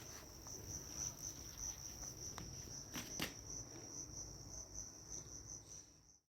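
Crickets chirping in a steady high trill that pulses about four times a second, with two sharp clicks about three seconds in. The sound cuts off suddenly near the end.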